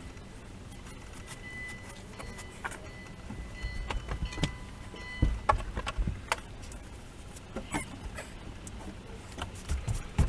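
Scattered knocks, thumps and rustling from hands-on work inside a gutted camper, as old fibreglass insulation and debris are pulled out and handled.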